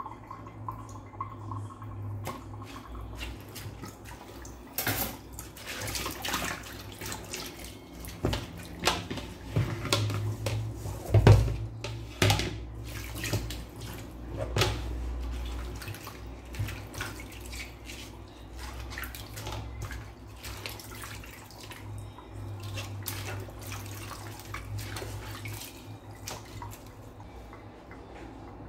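Hands washing pechay (bok choy) leaves in water: irregular splashing, sloshing and dripping, loudest about eleven seconds in.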